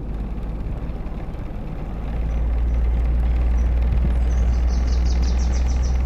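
Deep, steady engine rumble of a large vehicle, swelling louder about two seconds in, over a haze of traffic-like noise.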